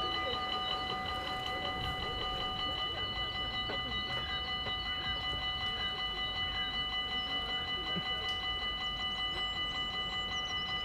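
Dutch level-crossing warning bells ringing in a fast, steady repeated rhythm.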